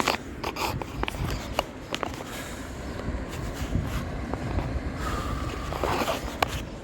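Footsteps and scattered sharp clicks and knocks over a low rumble while a person walks a dog, with a brief squeal that falls slightly in pitch near the end.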